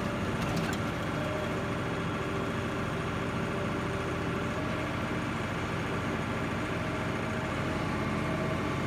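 Diesel engine of heavy earthmoving equipment running steadily at an even speed.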